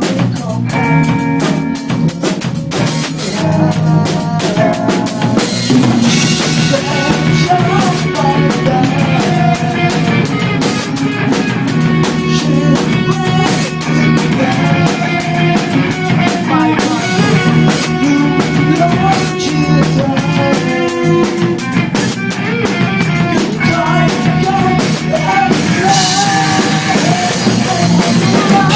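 Rock band playing live, with a busy drum kit hitting steadily under guitars and bass.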